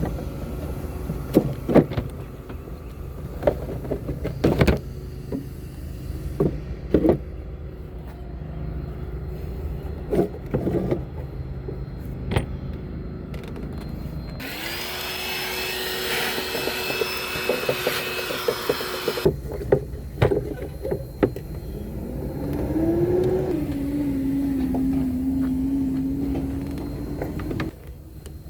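Hand tools clicking and knocking against engine-bay parts, with a small electric motor running twice for a few seconds at a time. The second run rises in pitch and then holds steady.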